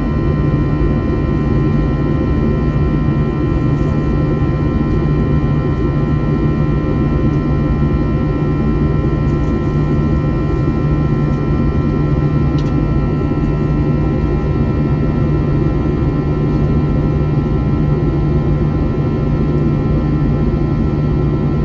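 Airbus A321 jet engines heard from inside the passenger cabin: a loud, steady engine noise with several steady whining tones over a low hum, holding level without rising or falling.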